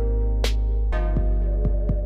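Background music with deep, steady bass and sustained chords over a slow beat: a sharp hit about half a second in, with lighter ticks between.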